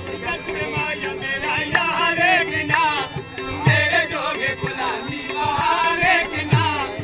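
Hindko mahiye folk song: a man sings a wavering, ornamented melody over a harmonium's held reed notes. A hand drum keeps time, and a few of its low strokes slide downward in pitch.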